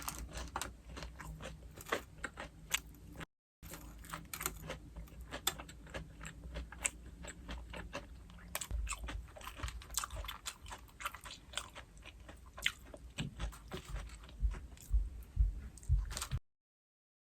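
Close-up eating sounds of crispy fried pork cutlet: crunchy bites and chewing with many sharp crackles, growing louder and heavier near the end. The sound drops out briefly about three seconds in and stops about a second before the end.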